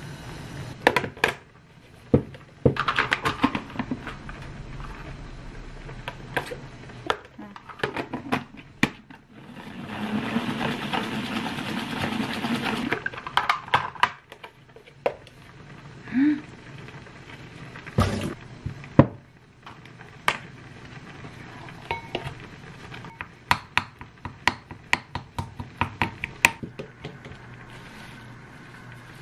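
Kitchen prep sounds: knocks and clatters of a pot and a plastic salad spinner being handled, with about three seconds of steady rushing noise roughly ten seconds in. A quick run of sharp clicks and taps follows near the end as lettuce is handled.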